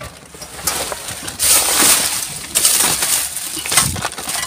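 Plastic bags and packaging rustling and crinkling in irregular bursts as rubbish is rummaged through by hand.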